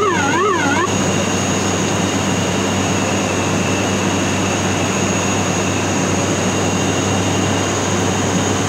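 Steady drone of the ATR 42-600's twin turboprop engines and propellers heard inside the cockpit, a low hum with a steady high whine above it. In the first second a short electronic tone warbles up and down about three times.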